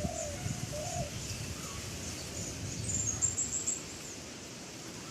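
Birds calling: low wavering calls in the first second and a quick run of high chirps about three seconds in. Under them is a low wind rumble on the microphone that eases off near four seconds.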